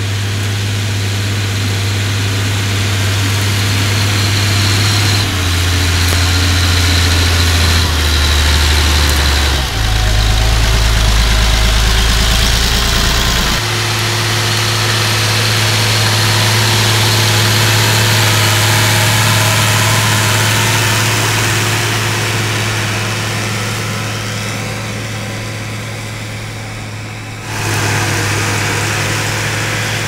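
Massey Ferguson 399's six-cylinder Perkins diesel running steadily under load as the tractor pulls a two-furrow plough. The engine note jumps abruptly to a new pitch a few times.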